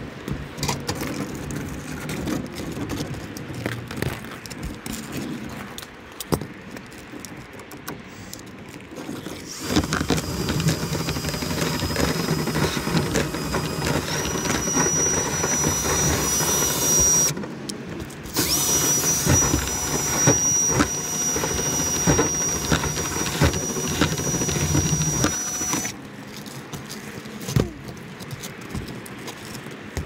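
Power drill spinning a rotary dryer-vent cleaning brush on flexible rods inside the vent duct, with a steady high motor whine over the brush scraping. It runs in two long stretches with a short stop between and halts near the end, after scattered rattles of the rods being handled. The audio is sped up to double speed.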